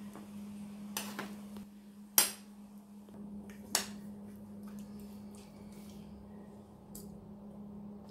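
A metal spoon knocking against a cooking pot and plate while food is dished up: a few sharp clinks, the loudest about two seconds in, over a steady low hum.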